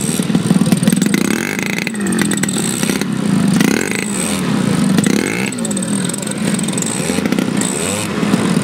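Engine of a large-scale radio-controlled Fokker D.VII model biplane running on the ground, revving up and down several times.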